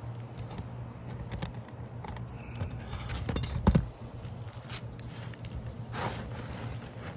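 Scrapes and scattered clicks of hand work on asphalt roof shingles, with one sharp knock a little past the middle, over a steady low hum.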